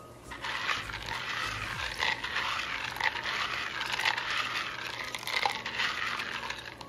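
Aquarium filter bio balls being rinsed by hand in water in a plastic measuring jug, rattling and clicking against each other and the jug as they are stirred and rubbed. The rattle keeps up unbroken and stops at the end.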